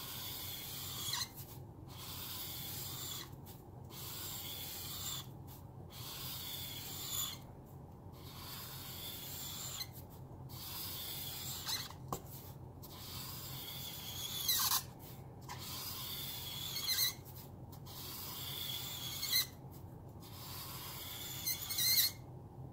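Zongii alcohol marker nib rubbing quickly back and forth across paper, a scratchy rasp in runs of strokes broken by short pauses about every two seconds, with an occasional brief squeak from the nib.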